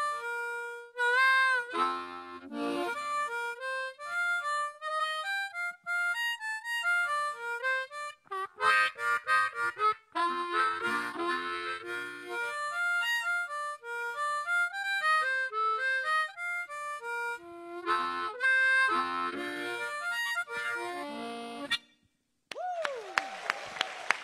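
Solo harmonica playing a fast melody of single notes and chords, with bent notes, stopping abruptly near the end. An audience then applauds.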